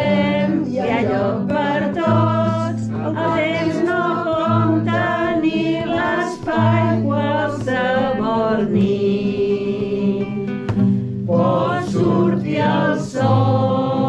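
Background music: a song with sung vocals over sustained bass notes.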